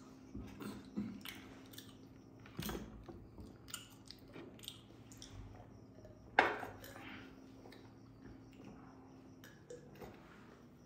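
Eating and drinking sounds: chewing with scattered small clicks and clinks, one sharper, louder click a little past the middle, while a glass mug of drink is sipped from.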